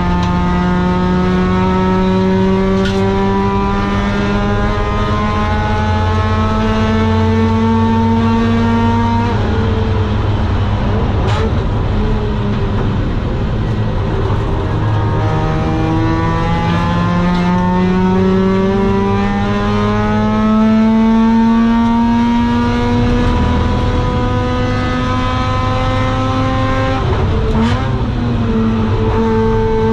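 Mazda RX-8's two-rotor Wankel engine at racing speed through a home-built long-tube exhaust with a Borla silencer, pitch climbing steadily for about nine seconds in a high gear. It falls away for several seconds as the car slows, climbs again for about twelve seconds, and drops once more near the end.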